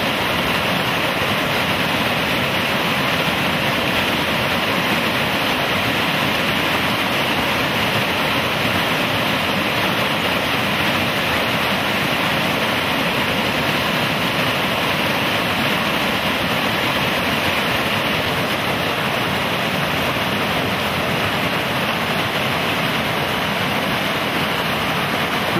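River rapids rushing over rocks: a loud, steady roar of white water that does not change.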